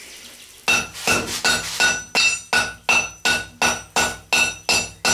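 Hand hammer forge-welding a white-hot billet of bicycle spokes and chain on an anvil. After a short pause, blows fall steadily at about three a second, each with a clear metallic ring.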